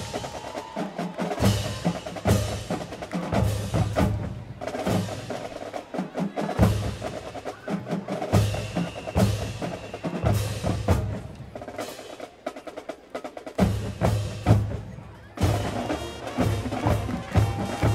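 Marching band drumline playing a percussion passage: groups of deep bass-drum hits and sharp snare strokes and rolls, broken by short pauses, with a few held notes from the band above.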